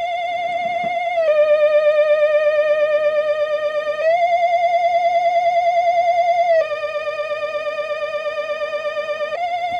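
Retro Halloween spooky sound-effect loop: an eerie, theremin-like electronic tone with a fast warble, stepping back and forth between a higher and a lower note about every three seconds.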